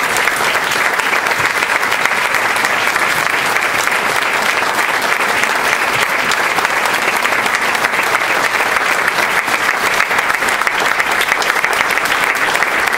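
Audience applauding steadily as invited guests come forward to the panel, a dense, even clapping that goes on throughout.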